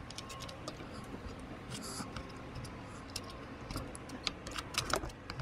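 Light, irregular clicks and taps of small parts being handled: a small M3 screw being worked into place through a plastic mudguard on a bike's suspension fork.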